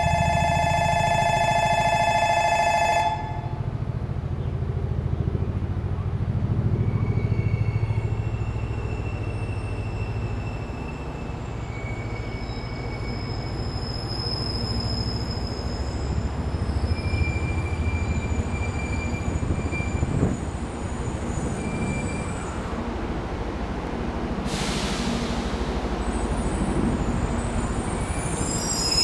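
A station platform chime rings steadily for about three seconds and stops. Then a 300 series Shinkansen bullet train rolls in toward the platform with a low rumble, faint high wheel squeals, and a short hiss of air a few seconds before the end.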